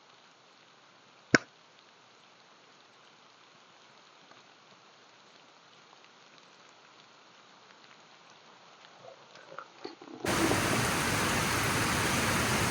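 A faint hiss broken by one sharp click about a second in, then near the end a sudden switch to loud, steady heavy rain.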